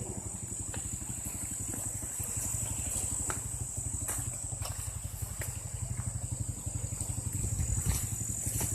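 A low engine hum with a fast, steady pulse, with a few light clicks and a constant thin high-pitched whine above it.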